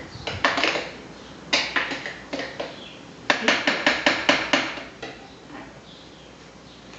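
A spoon knocking and clinking against a blender jar as a liquid mixture is stirred: scattered knocks at first, then a quick run of about seven sharp taps a little past the middle.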